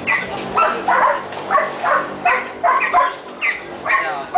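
Dog barking over and over, about two to three barks a second.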